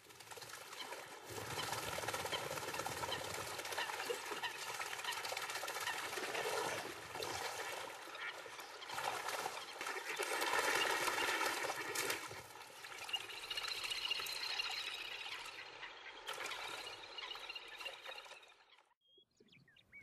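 Water splashing and rushing as ducks dash and chase across the surface, the noise swelling and easing in waves and stopping abruptly near the end.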